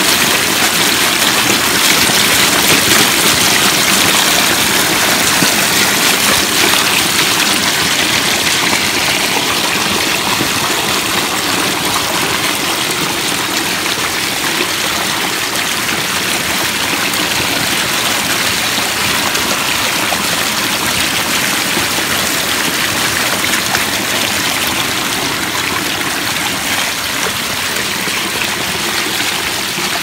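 Water of a backyard pondless waterfall pouring over a face of stacked rocks and splashing onto the stones below, a steady, even rush of falling water.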